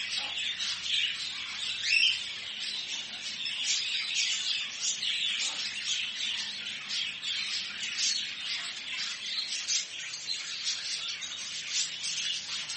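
Many small cage birds chirping and twittering together, a dense, unbroken chatter of short high calls, with one louder call about two seconds in.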